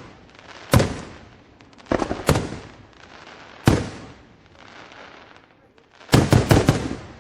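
Fireworks bursting: four separate sharp bangs a second or so apart, each trailing off in a crackling haze, then a rapid cluster of about five bangs near the end.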